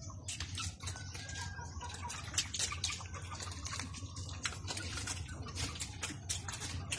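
Several pigs eating, chewing and slurping their feed with many quick, irregular smacking clicks.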